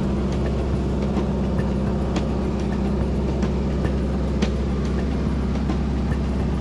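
Small floatplane in flight heard from inside the cabin: engine and propeller droning steadily, with faint scattered clicks.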